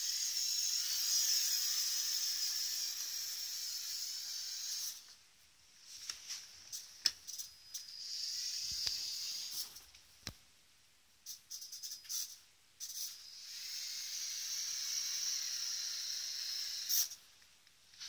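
Electric drive motor and gears of a small remote-controlled LEGO car whirring with a high whine in three runs of a few seconds each. Short clicks and brief spurts come between the runs.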